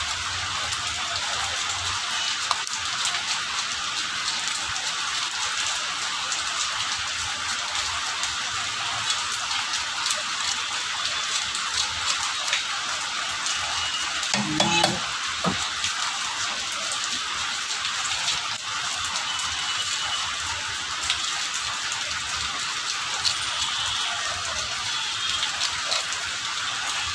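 Fish being sliced by hand against a boti, a fixed upright curved blade: a run of small clicks and scrapes over a steady hiss.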